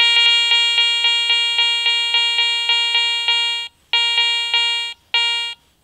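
Garrett ACE 400i metal detector, fitted with a Cors Cannon search coil, giving its target tone as it detects a gold coin. The tone is a steady mid-pitched beep pulsing about four times a second. It holds for about four seconds, then comes back as two shorter bursts.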